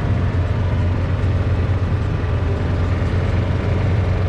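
Engine of a slow-moving small vehicle running steadily, a constant low hum with no change in speed.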